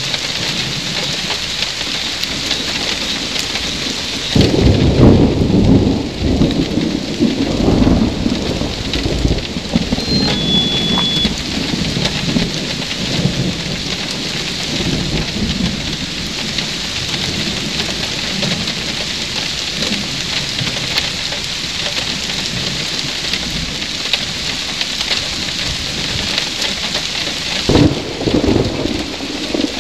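Steady rain falling, with thunder: a loud rumble about four seconds in that dies away over several seconds, and another rumble near the end.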